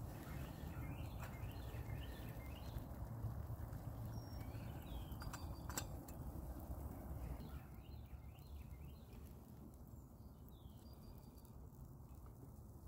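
Small birds chirping over a steady low rumble that eases off in the second half. About five and a half seconds in, two sharp metallic clicks as the lid of a titanium camp pot is handled.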